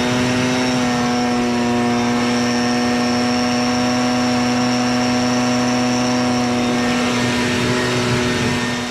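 A motorised blower running steadily at full speed with a high, even whine, blowing leftover hay out of a baler's chamber; it begins to wind down near the end.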